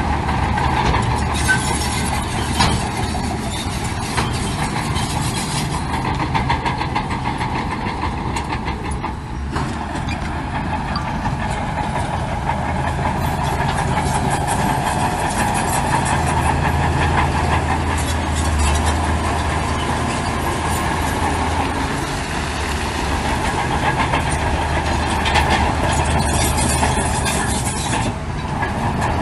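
Heavy earthmoving machinery working: a steady low diesel engine note with a continual clatter over it.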